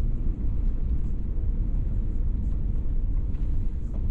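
Steady low rumble of a truck driving on a snowy road, engine and road noise heard from inside the cab.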